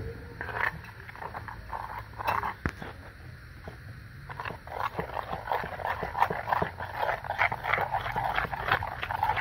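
Besan (gram-flour) batter being mixed by hand with water: irregular wet squelching and slapping, busier in the second half, as it is worked into a soft batter.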